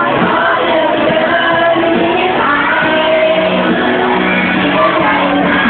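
Live singing into a microphone over loud amplified backing music, with shouts from the audience.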